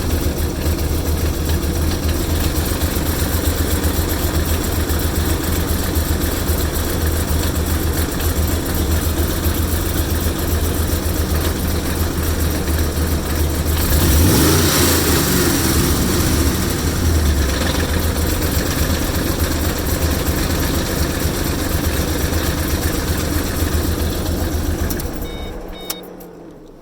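Car engine running at a rough idle, with a brief rev about halfway through that settles back down. Near the end the engine stops and the sound dies away.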